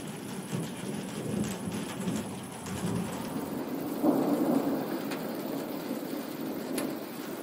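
Thunder rumbling over steady rain, with a fresh roll of thunder swelling about four seconds in and dying away slowly. Scattered raindrop ticks sound through the rain.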